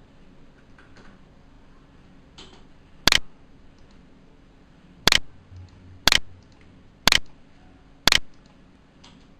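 Computer mouse clicking: five sharp clicks, the first on its own and the other four about a second apart, with a few fainter ticks between them.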